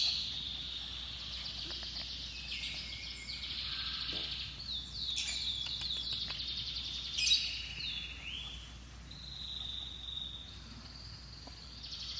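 Birds chirping and trilling, overlapping high-pitched calls with fast trills and some falling notes, quieter for a few seconds near the end. A single sharp click about seven seconds in.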